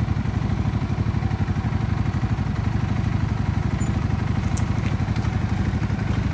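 ATV engine running steadily at low revs, a fast, even putter.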